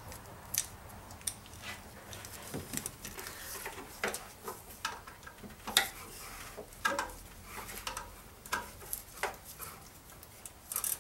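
Scattered light clicks, knocks and rubbing of hands working an engine's serpentine belt back on over its pulleys.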